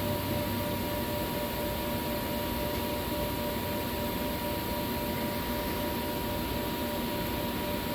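Steady machine hum with two unchanging whining tones, one higher and one lower, over an even noise.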